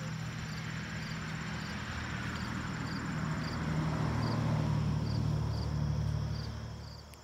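A low motor hum, like a running engine or machinery, swells in the middle and fades away near the end, with crickets chirping faintly and regularly in the background.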